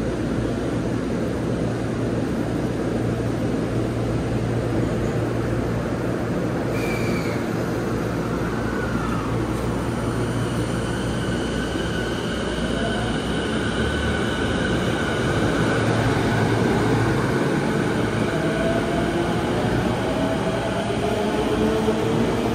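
A JR E233-series electric commuter train stands at the platform with a steady low hum. From about 19 s in, a rising whine of its traction motors comes in as the train starts to pull away.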